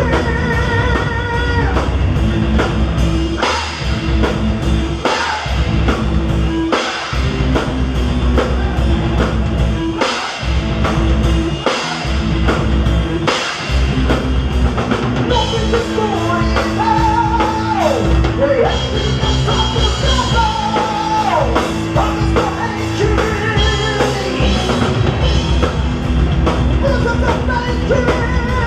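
Heavy metal band playing: distorted guitars, bass and a drum kit at a steady pulse, with short stops in the first half and a voice singing over it in the second half.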